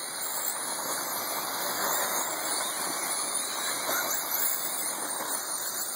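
Electric RC race cars' motors whining at high pitch, the tones wavering up and down as the cars accelerate and brake through the turn, over a steady hiss of the cars on the dirt track.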